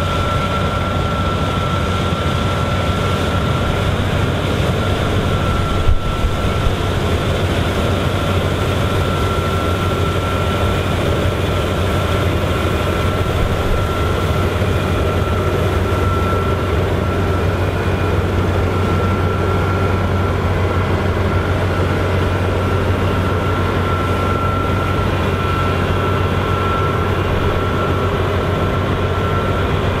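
Claas Lexion 8900 combine harvester running under load while harvesting canola, a steady machine drone with a thin, steady high whine over it. A brief knock about six seconds in.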